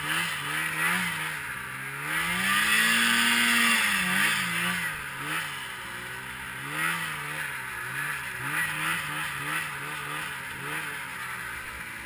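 Polaris IQ Shift 550 snowmobile's two-stroke engine revving up and down again and again as the throttle is worked while riding, held at its highest pitch for about a second around three seconds in, over a steady hiss of track and snow.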